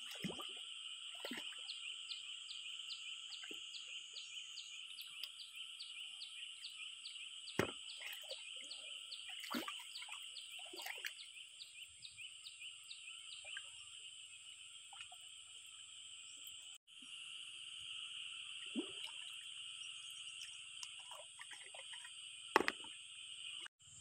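A steady outdoor chorus of calling insects and frogs: a high, even drone with a regular chirping about three times a second through the first half. A few short splashes and knocks from wading and handling shells in the shallow water break in.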